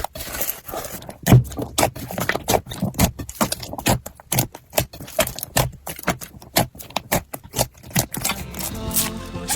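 Slime being squished and poked by hand, giving a quick, irregular run of sticky clicks and crackles. Music comes in near the end.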